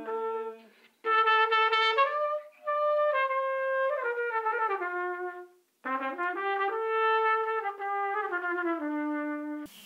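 Solo trumpet playing a slow melody of held notes that mostly step downward. It plays in phrases, with short breaks about a second in and just before six seconds.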